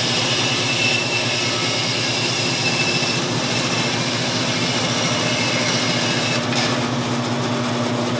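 Bandsaw running and ripping a 5/8-inch strip off a hardwood block fed along the rip fence: a loud, steady machine noise with a high hiss and a few steady tones.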